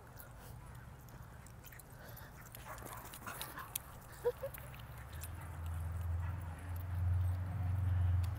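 A dog gives a brief high whine or yip a little over four seconds in, with fainter dog sounds just before it. Underneath is a low rumble that swells in the second half and is loudest near the end.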